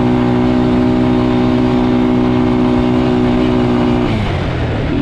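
Quad bike engine running at steady high revs, with the pitch dipping slightly and turning uneven about four seconds in.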